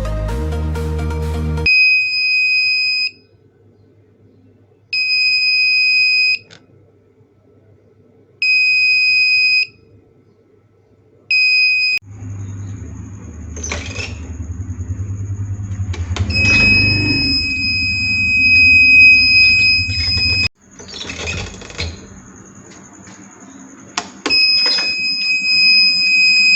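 Homemade door alarm's electronic buzzer sounding a high, shrill steady tone, switching on and off in four bursts of about a second and a half each. After that a second, higher tone comes in and the buzzer sounds in longer stretches, with knocking and handling noise around it.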